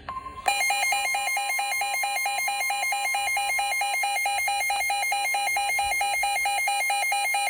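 A weather radio's built-in alert alarm: rapid, even electronic beeping, about four to five beeps a second, starting about half a second in. It is the receiver signalling that a warning, here a flash flood warning, has come in. A faint steady NOAA Weather Radio 1050 Hz warning tone is heard at the very start.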